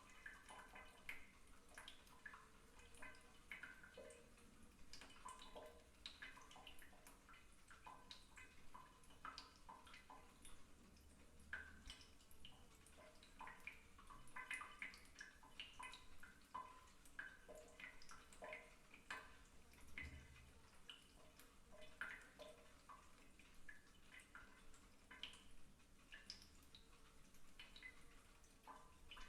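Faint water dripping from a bathtub faucet into standing bathwater: irregular small plinks and drips in a small, quiet bathroom.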